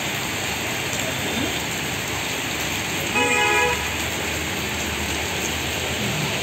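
Heavy rain falling steadily on a street, with a single short vehicle horn toot about three seconds in.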